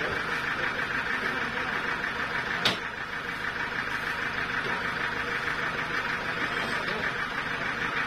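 Sawmill engine running steadily at idle with its saw not cutting, a fast even drone. A single sharp knock about two and a half seconds in.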